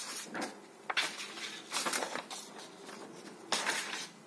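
Sheets of paper being handled and slid over one another: a few short rustles and swishes, the last one a little before the end.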